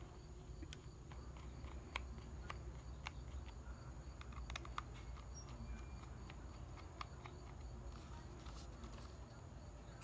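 Small screwdriver loosening the screws that hold a 2.5-inch laptop hard drive in its metal mounting bracket: faint, irregular clicks and ticks of the tip against the screw heads and bracket. A faint steady high whine and a low hum run underneath.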